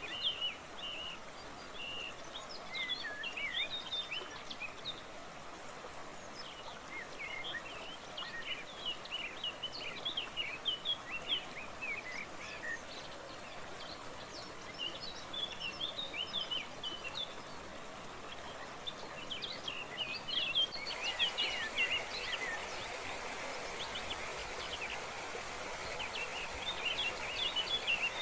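Steady rushing water of a waterfall with many small birds chirping and twittering over it. About three-quarters of the way through, the water noise steps up, louder and brighter.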